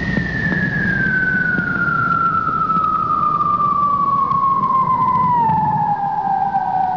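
Countdown-intro sound effect: a single whistle tone gliding slowly and steadily down in pitch over a low rumble, cutting off suddenly at the end.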